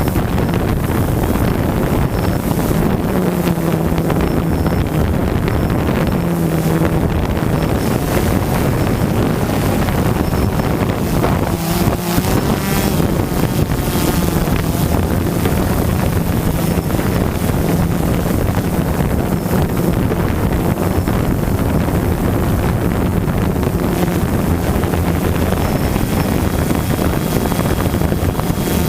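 DJI Phantom 2 quadcopter's motors and propellers buzzing steadily in flight, with a low hum that shifts slightly in pitch as the motor speeds change, and wind rushing over the microphone.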